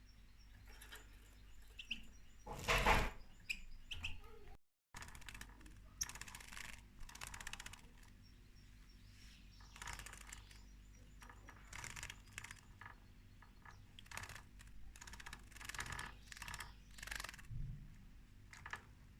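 Goldfinch bathing in a shallow dish of water: a run of short, faint splashes and wing flutters, the loudest about three seconds in, with a few faint chirps between them.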